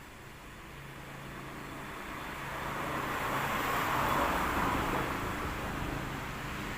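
A road vehicle passing, its broad engine and road noise swelling to a peak about four seconds in and then easing.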